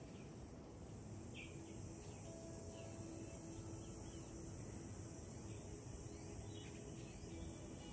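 Faint outdoor ambience: a steady high insect drone with a few short, scattered bird chirps.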